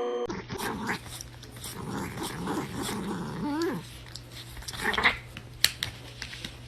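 A dog growling and grumbling in uneven wavering sounds, ending in a short rising-and-falling whine. A few sharp clicks or knocks come near the end.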